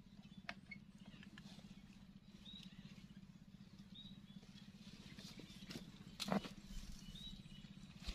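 Faint knocks and rustling from a rattan decoy cage and snare being handled and set down on bare soil, the loudest knock about six seconds in, over a steady low hum with a few short high chirps.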